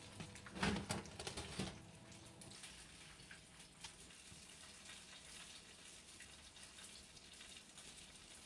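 A metal oven tray knocking and scraping as it is pulled from the oven rack, about a second in, then faint steady crackling of hot pork fat sizzling on the tray as the grilled pork belly slices are turned with metal tongs.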